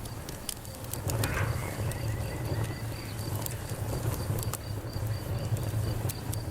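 Wood campfire crackling, with scattered sharp pops over a steady low rumble, while crickets chirp in a continuous high-pitched pulsing run.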